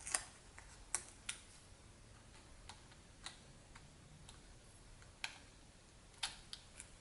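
Scattered small clicks and taps, about ten at irregular intervals, from fingers fitting the display cable connector onto the back of a laptop LCD panel.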